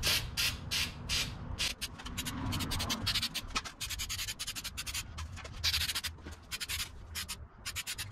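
Aerosol spray can of protective coating hissing in repeated bursts, some lasting about half a second and others quick short spurts.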